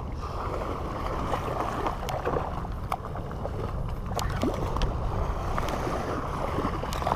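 Steady wind rumble on the microphone over waves washing on jetty rocks, with scattered light clicks as a spinning reel is cranked to bring in a small snook.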